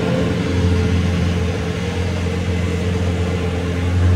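An engine running steadily at a constant speed: an even, low drone.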